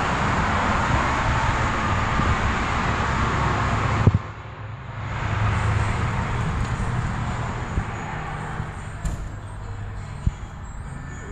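Vehicle running noise, loud and even, cut off abruptly about four seconds in; a quieter rumble then swells and slowly fades, with a few light knocks near the end.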